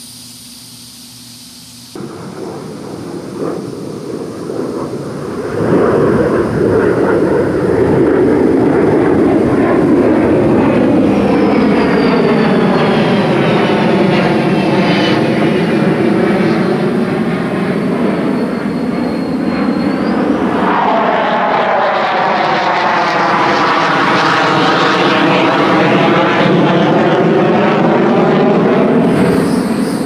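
An aircraft flying over: loud, steady engine noise that builds over the first few seconds, holds, and drops away near the end, with sweeping rises and falls in pitch as it passes.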